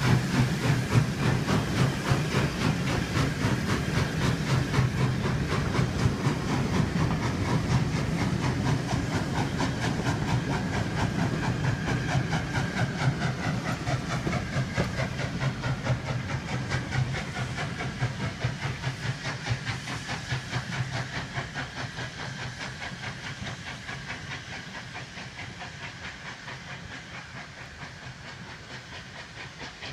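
Steam locomotive working hard as it hauls a train away, its exhaust chuffing in a steady, even rhythm over a hiss of steam, fading as it pulls into the distance.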